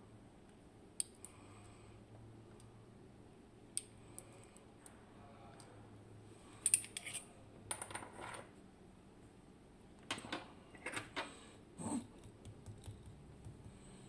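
Small metal parts of a disassembled Magnum Atlantic lock cylinder clicking and clinking as driver pins are taken out with steel tweezers. A couple of single sharp ticks come first, then two clusters of louder clinks and rattles in the second half.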